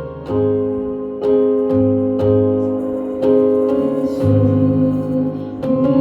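Keyboard playing slow, held chords over a bass line, each chord struck and left to ring, as a worship-song introduction.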